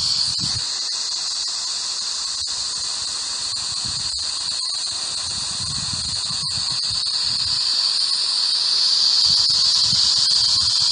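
Ghost Radio app playing its static: a steady high-pitched whistling hiss with a few brief dropouts, growing a little louder in the second half.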